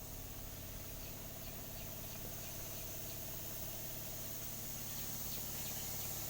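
An engine idling steadily in the background, with a high, even insect drone over it.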